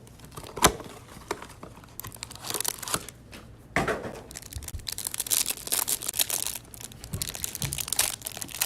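A Panini Playbook football-card hanger box being torn open by hand: a couple of sharp clicks, then from about two seconds in, stretches of cardboard and wrapping tearing and crinkling.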